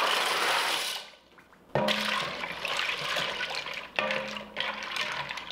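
Dry penne pasta is poured from its box into a pot of liquid and patters and splashes in for about a second. A wooden spoon then stirs it, sloshing the liquid and knocking against the pot about two seconds in and again near four seconds, each knock leaving a short ring.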